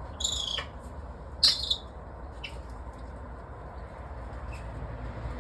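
Short, high-pitched squeaky bird calls: one near the start, the loudest about a second and a half in, then a couple of fainter ones.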